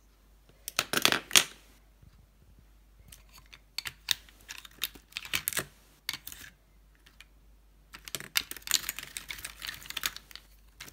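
Lipsticks and small plastic makeup cases clicking and rattling against each other as they are handled and rummaged in a wire basket. The clicks come in clusters: a loud one about a second in, scattered clicks in the middle, and a dense run of quick clicks near the end.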